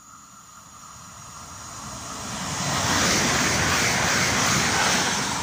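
Electric multiple unit passing along the platform: the rush of wheels on the rails grows as it approaches, is loudest for about two seconds as it goes by, and begins to fade near the end.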